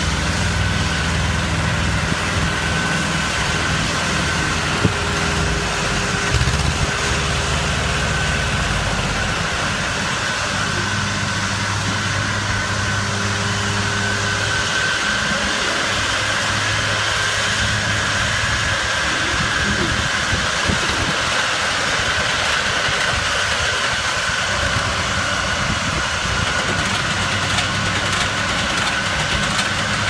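Small tractor's diesel engine running steadily while driving a mini round baler through cut grass, with a thin steady whine above the engine note.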